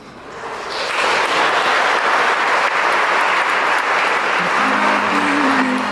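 A congregation applauding, swelling over the first second into steady, loud clapping. Music begins underneath near the end.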